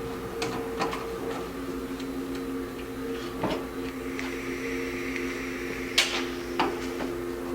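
Sharp clicks and taps of small metal carburetor parts being handled during teardown, about five in all, the loudest near the end. They sit over a steady hum of several steady tones.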